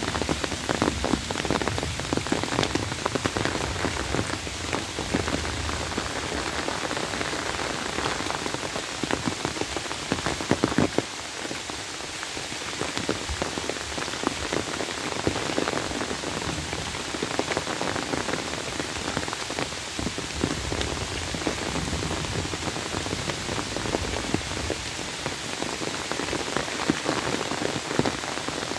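Steady rain falling on trees and bamboo, with many close drops heard as separate strikes among the hiss.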